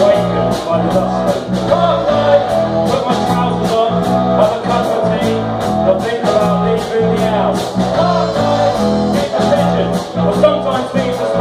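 Live rock band playing amplified: electric guitars over a bass line and drums, with cymbals struck on a steady beat and a voice singing.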